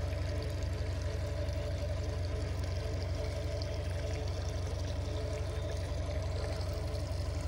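A small boat motor running steadily, a constant hum under the noise of moving water.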